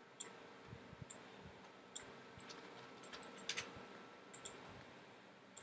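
Faint computer mouse clicks, scattered irregularly and some in quick pairs, over a low steady hiss.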